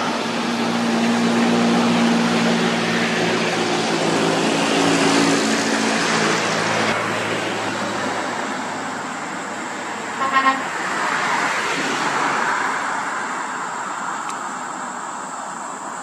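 Heavy truck hauling a bulldozer on a lowboy trailer, its engine running with a steady hum as it pulls away, then steady road noise. A brief vehicle horn toot about ten seconds in.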